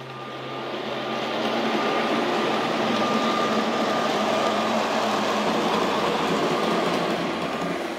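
H0-scale model electric locomotives coupled as a light-engine train, running past close by: the steady running noise of wheels and motors on the model track, swelling in over the first second or two and easing off near the end.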